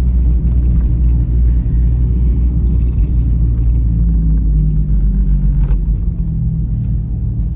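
Steady low rumble of a car driving along the road, engine and road noise.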